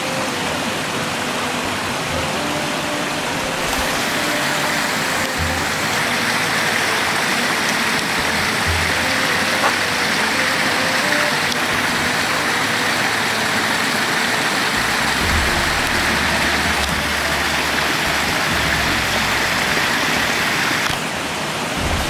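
Steady rush of running water at a trout pond, fairly loud throughout.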